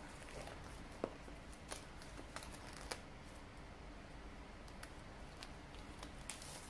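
Clear plastic shrink-wrap being peeled off a cardboard smartphone box: faint crinkling with scattered sharp crackles, the sharpest about a second in.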